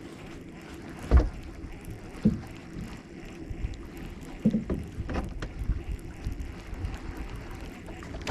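A few scattered knocks and thumps, the loudest about a second in, over a low steady background with some wind.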